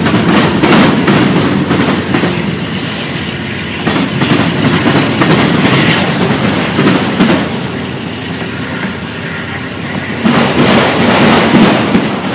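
Freight cars, covered hoppers and then autoracks, rolling past close by. Wheels clack over the rail joints in a dense run of clicks over a steady rumble, swelling louder and fading again several times as the cars go by.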